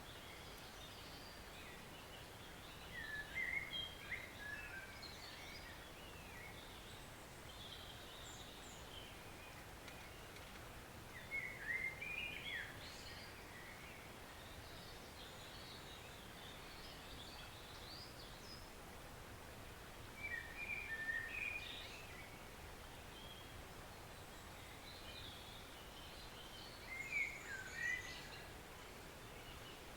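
Faint steady rush of a woodland stream, with a songbird singing a short, fast-warbled phrase four times, about every eight seconds.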